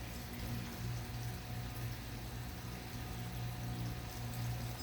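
Steady background noise: an even rushing sound over a constant low hum, with no speech.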